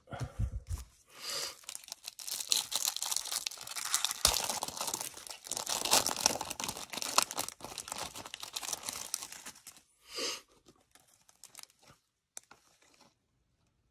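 The wrapper of a trading-card cello pack being torn open and crinkled by hand, a dense crackling rustle that stops about two-thirds of the way through.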